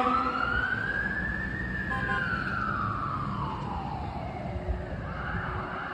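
Fire engine siren sounding one long wail that rises, then falls slowly over several seconds, switching about five seconds in to a quicker repeating warble. The siren fades as the truck drives away.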